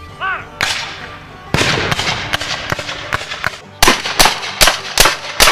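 Black-powder muskets firing. One shot comes first, then a ragged volley of many overlapping shots about a second and a half in, then a quick string of five sharp single shots at about two and a half per second.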